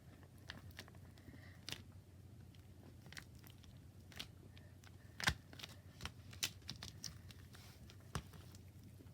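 Borax-free clear slime squeezed and poked by hand, giving irregular sticky clicks and small pops, the sharpest a little over halfway through.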